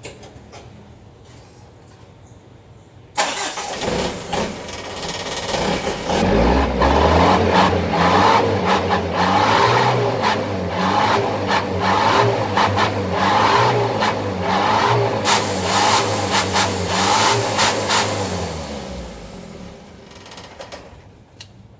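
Engine started about three seconds in and run for about fifteen seconds through a homemade exhaust extension welded from a used oil filter, then dying away near the end. It gives only a slight "nguk-nguk" note, not yet strong, which the builder thinks is down to the drilled holes inside.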